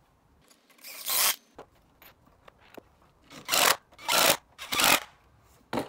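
Cordless drill driving 70 mm wood screws through a 3x2 timber batten into the bench-top boards, in short bursts: one about a second in, three close together past the middle, and a brief one at the end.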